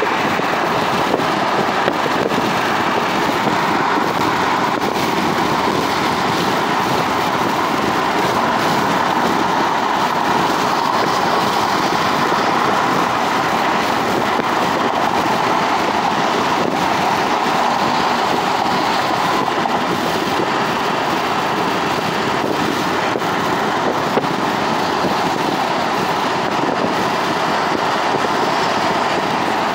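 Steady road and tyre noise with wind rush, heard inside a car's cabin travelling at freeway speed.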